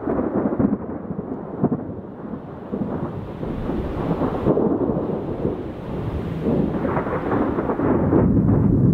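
Thunder rumbling and rolling on without a break, growing louder near the end.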